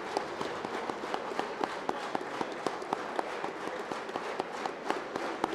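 Crowd applauding: many hands clapping at once, with a scatter of sharper single claps standing out from the mass.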